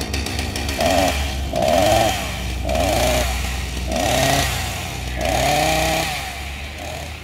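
Chainsaw revving five times, about a second apart, each rev rising in pitch and then falling away, over a steady low hum.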